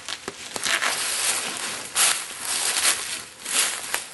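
Irregular rustling and scraping of gear being handled, in a string of short swishes with a few sharp clicks.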